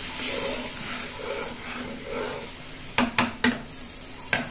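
Mustard-paste curry with potatoes sizzling softly in a nonstick pan, the water just added, as it is stirred with a spatula. About three seconds in the spatula knocks against the pan three times in quick succession, and once more near the end.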